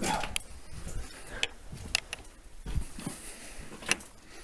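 Footsteps on loose rock rubble in a tunnel: irregular crunches and clicks of stones shifting underfoot, about half a dozen spread unevenly.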